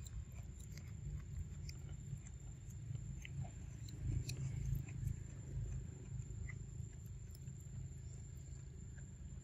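Macaques chewing and nibbling on corn kernels close by: small scattered clicks and crunches over a low rumble, with a steady faint high tone behind.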